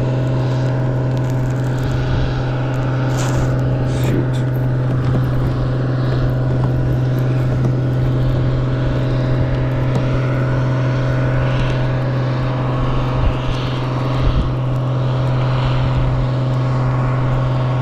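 A steady, unchanging low mechanical hum, like a motor running, with a couple of brief knocks about two-thirds of the way through.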